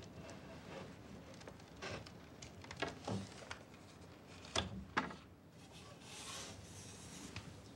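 Quiet handling sounds in a small room: a few light wooden knocks and scrapes, two sharper knocks about halfway through, then a soft rustle.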